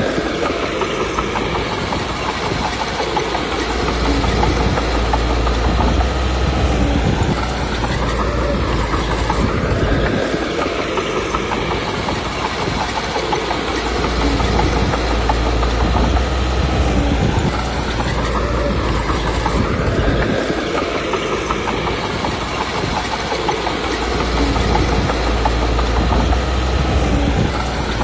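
Small Komatsu D21P crawler bulldozer working: diesel engine running under load with steel track clatter, the engine's rumble swelling and easing every several seconds as it pushes stone.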